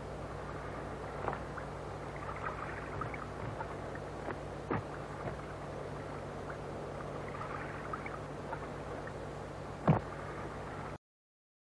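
Steady low hum with hiss, with faint scattered clicks and a sharper click about ten seconds in. It cuts off abruptly just before the end.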